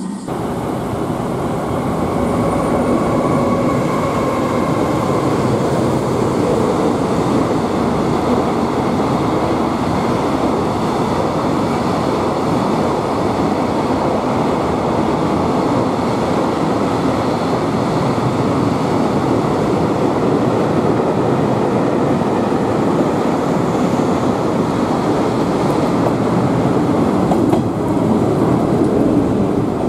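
Yellow 115-series electric train running along the platform, its wheels and motors making a loud, steady noise that starts to build about a second in.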